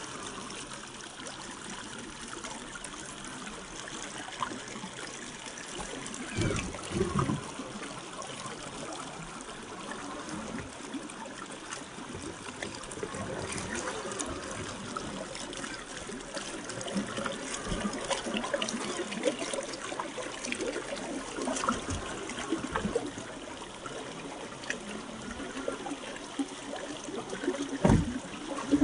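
Shallow river water trickling and running over rocks, with a few dull low thumps about six to seven seconds in and again near the end.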